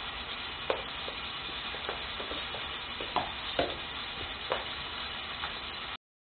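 Two German shepherds, a young male and a puppy, play-fighting on a wooden floor: a few short, sharp sounds from the scuffle over a steady hiss. The sound cuts out completely near the end.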